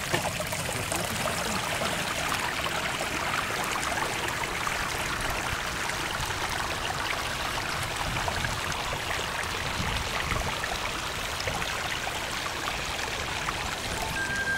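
Glacial meltwater stream running over rock, a steady, even rush of water.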